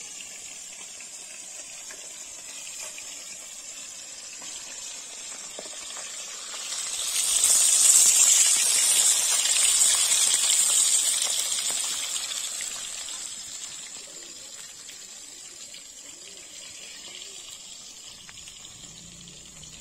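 Fish pieces frying in hot oil in a kadai: a sizzling hiss that swells about seven seconds in, holds for a few seconds, then slowly dies down.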